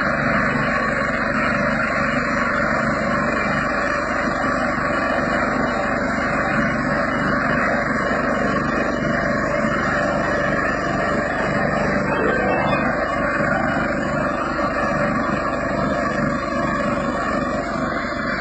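Rice combine harvester running steadily, its engine and machinery making an unbroken loud drone with a constant low hum.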